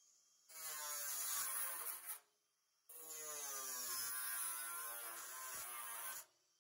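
Handheld power tool cutting into corrugated iron sheet: its motor whine with a harsh metal-cutting hiss, run in two bursts with a short pause about two seconds in. The pitch sags a little during the first burst as the motor takes the load.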